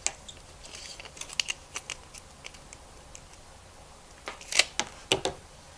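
Scattered small clicks and taps of a hand tool and AGL primary power cable being handled while the outer insulation is set up for stripping, with a louder cluster of clicks about four to five seconds in.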